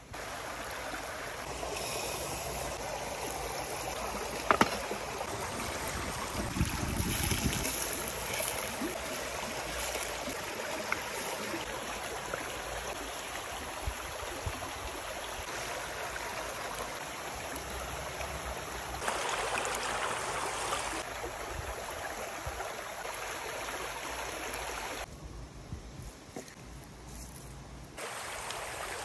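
Shallow stream water rushing steadily over rocks, with one sharp knock about four and a half seconds in. The water sound jumps in level at several abrupt cuts.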